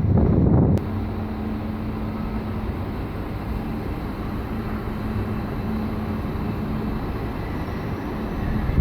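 Railway station platform ambience dominated by a stationary train humming and rumbling steadily, with a constant low tone.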